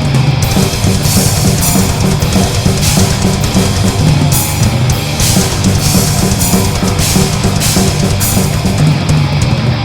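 Loud heavy rock music played by a band, a full drum kit driving it with repeated cymbal crashes over a dense low end.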